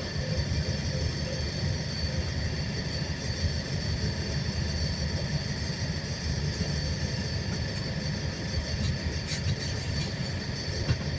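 Cabin noise of a Wright New Bus for London in motion: a steady low rumble, with a faint steady high whine above it.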